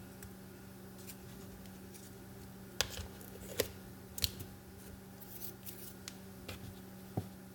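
Sharp clicks and light knocks of handling a one-cup coffee maker, about half a dozen spread over several seconds, over a steady low hum.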